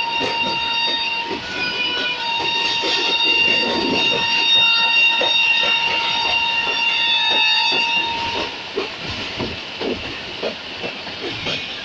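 A moving passenger train's steel wheels squealing against the rails, several high steady tones held for about eight seconds and then stopping. Under the squeal run the knocks and clatter of the wheels over rail joints and the rumble of the moving coach.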